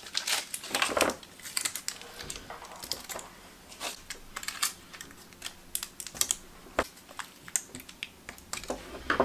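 Aluminium tape and thin foil crinkling under the fingers: irregular light crackles and ticks as tape is handled and pressed around the edges of a small foil pinhole aperture.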